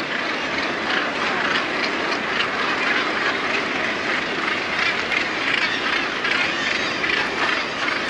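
Northern gannet colony: many birds calling at once in a continuous, dense clamour of overlapping calls.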